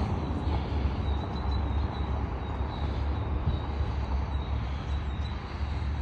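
Outdoor ambience: a steady low rumble, with a faint thin high tone.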